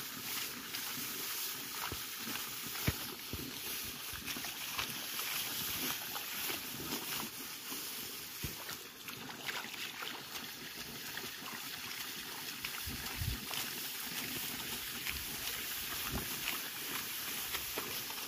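Ripe paddy stalks rustling and crackling as they are gathered and cut by hand, with scattered short clicks and the slosh of feet in muddy paddy water, over a steady hiss.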